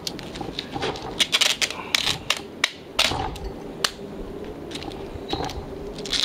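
Plastic bags crinkling and rustling, with irregular sharp clicks and crackles as glassware wrapped in them is handled.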